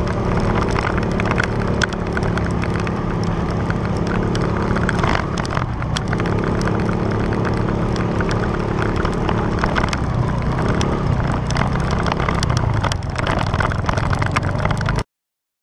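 Motorcycle engine running at low, steady revs, with crackling on the microphone; the sound cuts off abruptly near the end.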